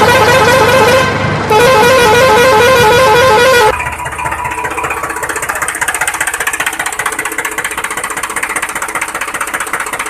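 A warbling vehicle horn sounds in two long blasts over the first four seconds. After that a steady, fast-pulsing engine-like running sound continues.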